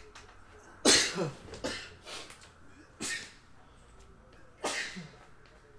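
A man sneezing three times, the first about a second in and the loudest.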